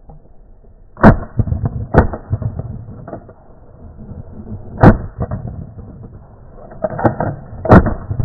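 Shotguns firing at a flock of brant: four loud shots, about a second in, at two seconds, near five seconds and near eight seconds, with a fainter shot just before the last one.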